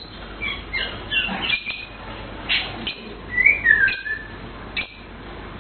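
A cucak keling bird singing: scattered short chirps, with one longer whistled phrase that falls in pitch a little past the middle.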